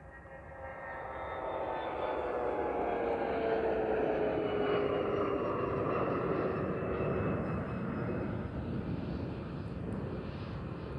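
Twin turbofan engines of an Airbus A320-family airliner running at high power as it rolls along the runway. The noise builds quickly over the first two seconds into a steady loud rush, with whining fan tones that slowly fall in pitch as it passes.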